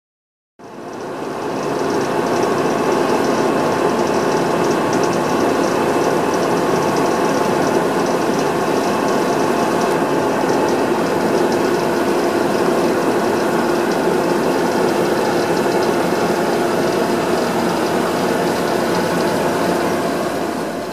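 Machinery of the Arzviller inclined plane's boat caisson lifting the caisson's end gate. It makes a loud, steady mechanical drone with a rapid clicking rattle, starting abruptly about half a second in and dying down near the end.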